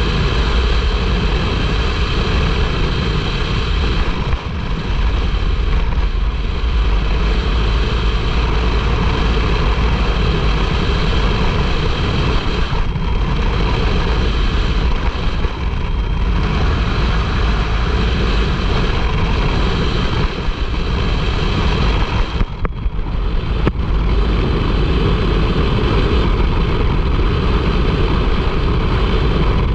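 Turbocharged side-by-side UTV driving at speed on a dirt road: a steady engine drone mixed with wind and tyre noise, dipping briefly a few times.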